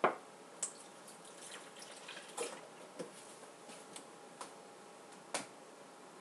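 Kitchen handling sounds while milk is added to soda bread dough: scattered light knocks and clicks of a measuring jug and wooden spoon against a mixing bowl, with milk poured and dripping into the bowl. The sharpest knock comes right at the start.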